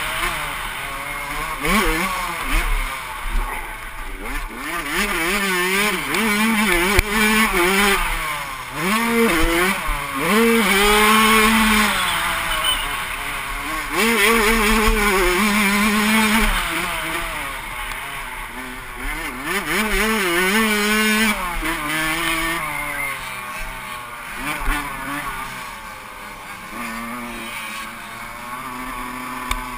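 Suzuki RM85 85cc two-stroke single-cylinder engine racing, revving hard up and dropping back again and again through the gears and the turns. Wind rushes over the helmet-mounted camera.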